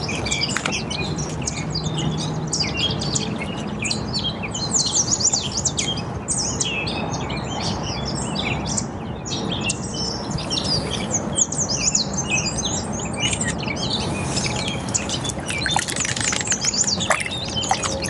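A dense chorus of songbirds chirping and calling without pause, many short high chirps overlapping, over a steady low rush of background noise.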